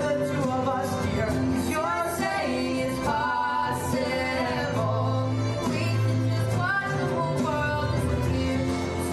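A boy and a girl singing a Broadway ballad duet together over instrumental accompaniment.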